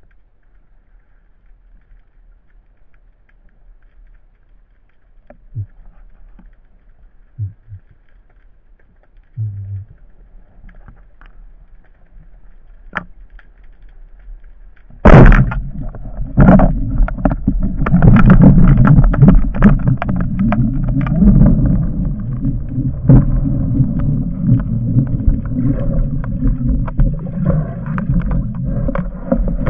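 Underwater: faint water hiss with a few soft knocks, then about halfway a sharp crack as a band-powered wooden speargun fires. Loud churning water noise with many knocks follows as the diver moves with the speared fish on the shaft.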